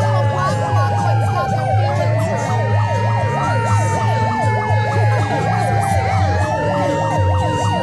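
Several sirens sounding at once, played loud through loudspeakers as a noise assault: fast yelping sweeps layered over a slower wail that falls and rises about every four seconds, with a low steady hum underneath.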